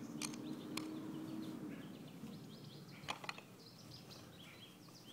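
Faint outdoor background with small birds chirping and a few light clicks, the clearest about three seconds in, from a Phillips screwdriver starting a screw through a plastic pool return faceplate. A faint low hum runs through the first second or so.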